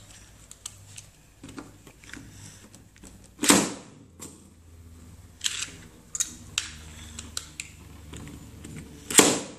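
Metal Beyblade spinning tops, Lightning L-Drago against a modified bey, clashing in a plastic stadium: scattered clicks and knocks, with two louder bursts, one about three and a half seconds in and one near the end.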